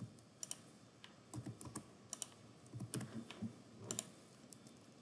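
Faint, scattered clicks and taps of a computer mouse and keyboard, several clicks coming in quick pairs.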